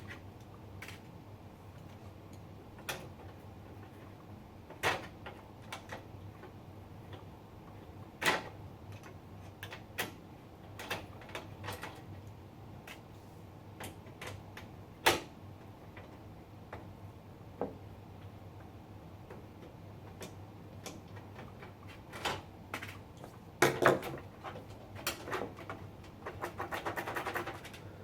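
Scattered clicks and knocks of computer parts and cables being handled and unplugged during a PC teardown, over a faint steady low hum. Near the end comes a quick run of rapid clicks.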